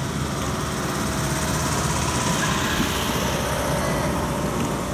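Classic cars driving past one after another, a steady mix of engine and tyre noise that swells slightly as a car passes close about halfway through.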